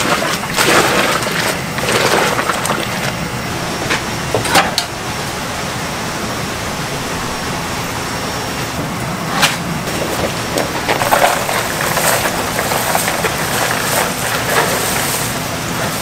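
Large aluminium stockpot of vegetable broth boiling hard, a steady rushing noise, with water poured into it near the start and a few sharp knocks of a metal ladle against the pot.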